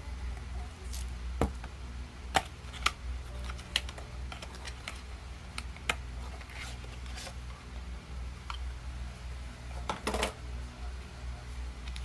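Scattered clicks and scrapes of a craft knife cutting the seal on a small cardboard charger box, then cardboard handling as the box is opened and its contents worked out, with a quick run of clicks near the end. A low steady hum sits underneath.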